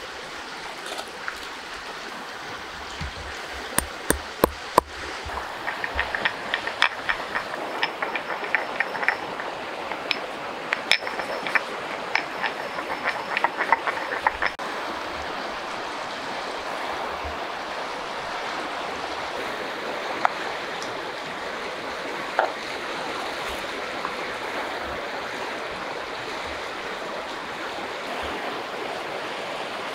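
A steady rush of flowing river water. Over the first half comes a run of sharp clicks and taps from glass spice jars and a stone mortar being handled; they stop about halfway through.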